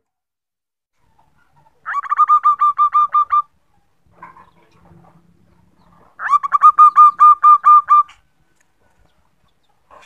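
Female zebra dove (perkutut) calling twice: each call is a quick run of about a dozen short, ringing coo notes. The calls are about four seconds apart.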